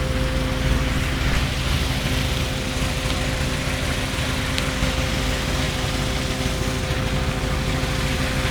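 Fishing boat's diesel engine running steadily: a constant drone with low rumble and an even hum.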